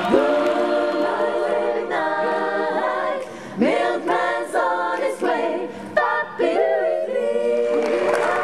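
Women's choir singing a cappella. It opens on a held chord, moves into a run of short notes that scoop up into pitch, and settles on another held chord near the end.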